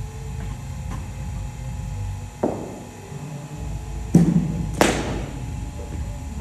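Sharp knocks of a cricket ball bouncing on the pitch and meeting a Kashmir willow cricket bat: a lighter knock about two and a half seconds in, then a louder pair close together near the middle, the last one crisp and ringing briefly.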